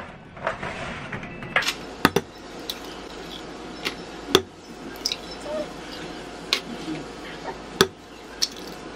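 Eggs being cracked one after another: three sharp cracks a couple of seconds apart, with lighter clicks and rustles from handling the shells and plastic egg carton between them.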